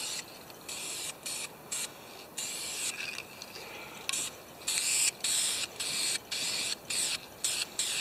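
Aerosol spray paint can hissing in a rapid series of short bursts, most under half a second long, as red paint is sprayed on chainsaw parts.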